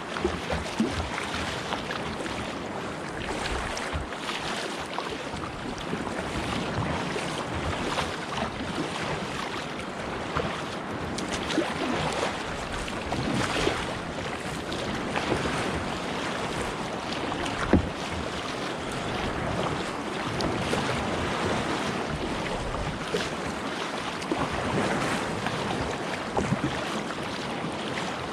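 Sea water splashing and lapping around a kayak as it is paddled, with scattered small splashes and knocks, one sharper knock about eighteen seconds in, and wind buffeting the microphone.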